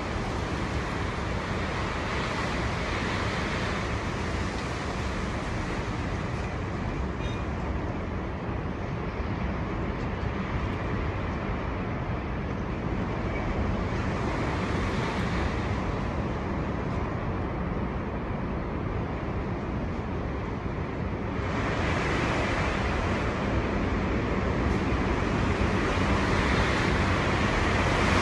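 Storm-force wind gusting, a continuous roar of noise that swells and eases, with a stronger gust rising about two thirds of the way through and building louder toward the end.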